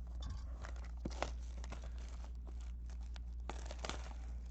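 Packaging of a trading card box being torn open and crinkled by hand: a run of irregular rips and crackles, over a low steady hum.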